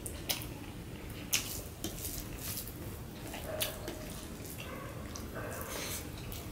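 Fingers mixing rice with mashed bhorta on a steel plate: wet squishing with a few sharp clicks of fingers against the metal.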